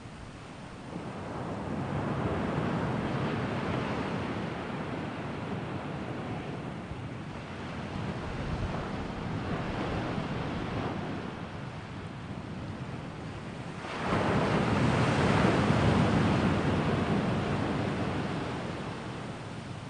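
Ocean surf: waves washing in and out in slow surges, the largest about three-quarters of the way through.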